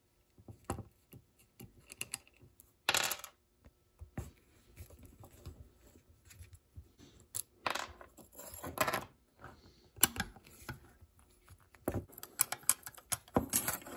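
Scattered clicks, clinks and light rattles of small metal parts as a Shimano Deore XT M8100 rear derailleur is handled and its pulley-wheel bolts are worked with an Allen key. The sounds come in short clusters.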